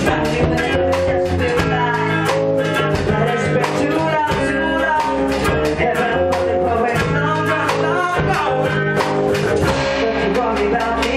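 A live rock band playing: electric guitars and a drum kit with a singer on a microphone, the drums keeping a steady beat.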